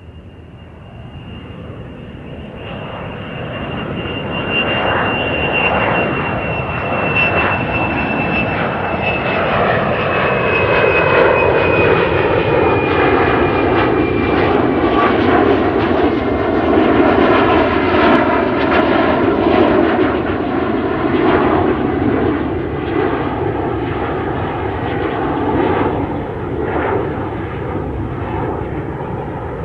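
Airplane flying past, growing louder over the first ten seconds or so and then staying loud, with a high whine that slowly falls in pitch.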